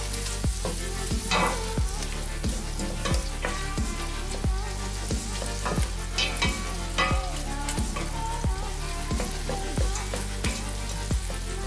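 Chopped red onions sizzling in melted butter in a stainless steel pot, stirred with a wooden spoon. Background music with a steady beat plays underneath.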